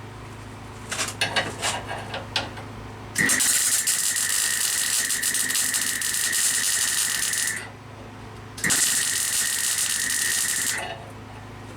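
Two runs of welding on the car's steel bodyshell: a steady crackling sizzle of about four seconds, a second's pause, then about two seconds more, each starting and stopping abruptly. A few sharp clicks come before the first run, over a steady low hum.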